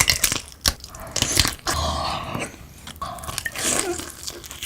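Close-miked eating: several sharp crunchy bites in the first second and a half, then longer stretches of crunching as the food is chewed.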